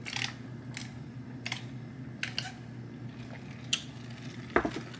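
A person sipping a soft drink through a straw from a paper fountain cup: a handful of faint, short clicks and sips, mouth and cup sounds, over a low steady room hum.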